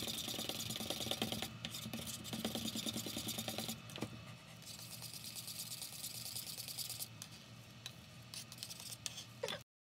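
A spoon and spatula stirring and scraping liquid soap colorant in small cups, with quick rapid scraping strokes, busier for the first four seconds and softer after, over a steady low hum. The sound cuts off abruptly just before the end.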